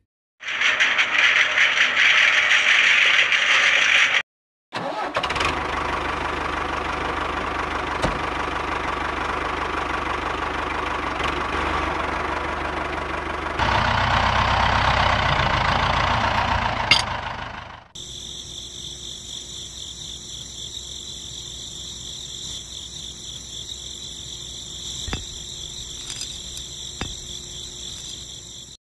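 Small motor of a homemade miniature tractor running in stretches: it cuts out briefly about four seconds in, grows louder around fourteen seconds, and gives way to a thinner, higher steady sound from about eighteen seconds.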